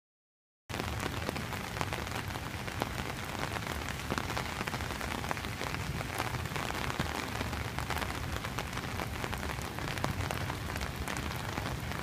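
Rain falling on wet asphalt: a steady hiss of rainfall with many small drop ticks, starting abruptly under a second in.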